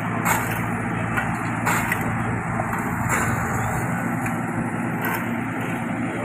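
Diesel engine of an asphalt finisher (paver) running steadily while laying asphalt, with a dump truck working alongside it. A few short knocks are heard over the engine sound.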